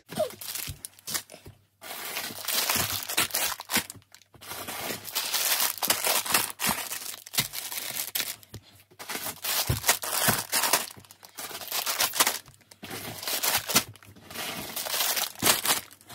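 Plastic packets of dried pasta crinkling and rustling as they are handled and packed into a cardboard box, in a run of bursts broken by short pauses.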